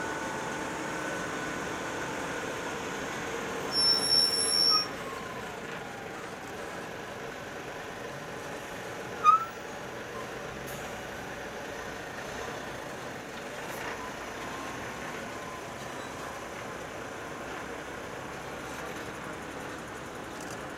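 Heavy Hino crane trucks passing slowly in a line, their diesel engines running steadily. A brief high-pitched beeping comes about four seconds in, and a single short, loud chirp-like sound about nine seconds in.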